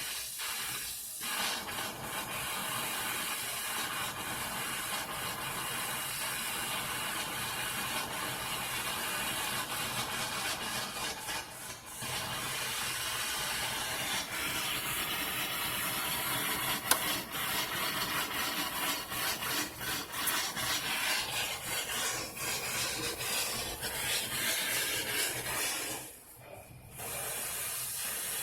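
Air and water sputtering and spraying out of the open inspector's test valve at the end of a dry-pipe fire sprinkler line: a steady hissing rush broken by irregular spits, which briefly drops away near the end. The spitting air shows the pipe is still purging after the trip test and not yet running water only.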